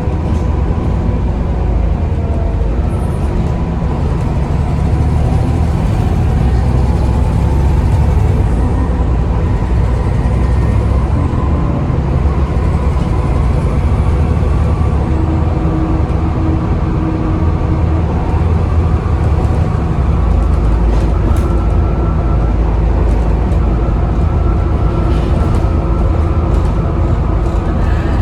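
Volvo B7TL double-decker bus's diesel engine running steadily under way, with a steady high whine from its loud cooling fans over the engine.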